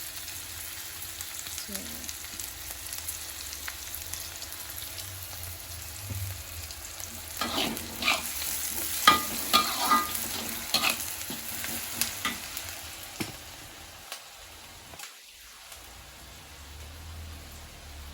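Sweet soy sauce and onions sizzling in a hot frying pan. From about seven to thirteen seconds in, a series of sharp scrapes and clinks as a metal spatula stirs against the pan. The sizzle is quieter near the end.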